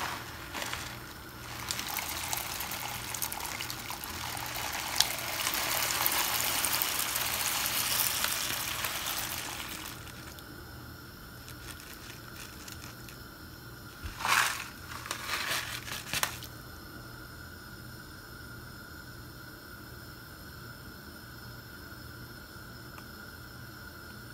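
Dry grains and beans from a bag of soup mix poured into a pot of water: a steady pattering rush that builds over several seconds and then fades. Two brief crinkles of the plastic bag follow, with a faint steady hum underneath.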